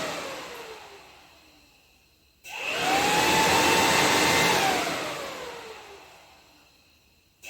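Yamaha Phazer snowmobile's electric cooling fan being switched on and off by the fan-relay diagnostic test. It is winding down with a falling whine at first. About two and a half seconds in it starts abruptly and runs steadily, then cuts out and winds down again, and it switches back on at the very end.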